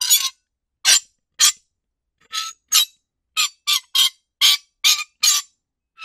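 Metal squeaking from friction: about eleven short, shrill, scraping squeaks at an uneven pace, with a pause about a third of the way through.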